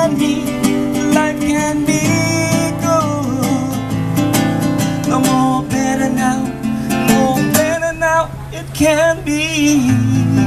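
Live acoustic guitar strummed in a steady chord pattern, with a man singing along; the voice holds a few wavering notes near the end.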